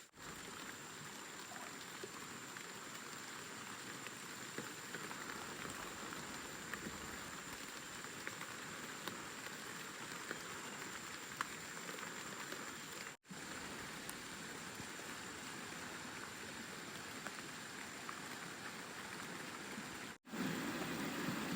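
Steady rain falling, with scattered drop ticks. The sound cuts out abruptly twice, about 13 and 20 seconds in, and near the end a louder, lower rushing takes over.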